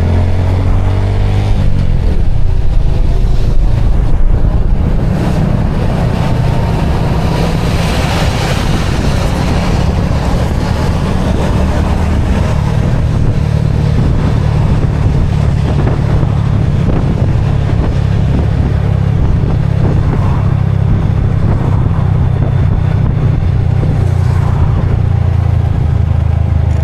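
Small motorcycle's engine running while riding, pitch climbing in the first couple of seconds as it pulls away, then holding a steady drone.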